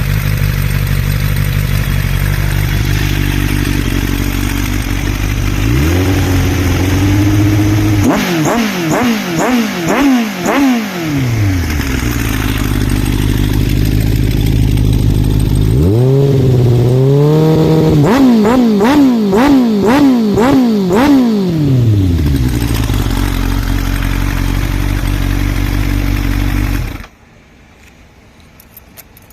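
Suzuki Katana motorcycle's GSX-R1100 inline-four engine idling, revved in two runs of quick throttle blips, then switched off, cutting out suddenly near the end.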